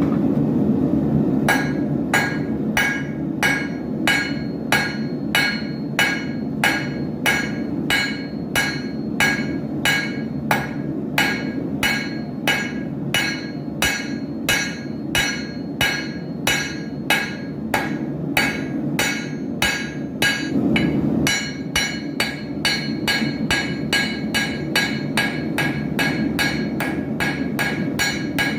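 Blacksmith's hammer forging an arrowhead on an anvil: a steady run of blows, about two to three a second, each with a metallic ring. There is a short pause near the start and another about two thirds of the way through, with a steady low rumble underneath.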